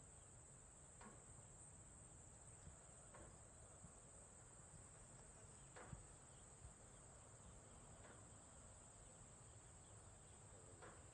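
Faint, steady high-pitched chorus of crickets in outdoor farm ambience, with a few soft clicks now and then, the clearest about six seconds in.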